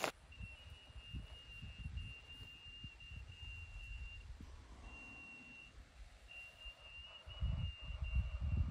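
Wind rumbling on the microphone, gusting harder near the end, with a thin steady high whistle-like tone running over it that drops out twice.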